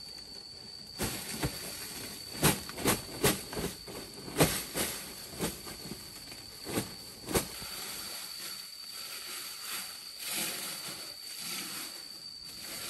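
Chicken sizzling in a frying pan: a steady hiss, with a run of sharp knocks and clicks through the first half.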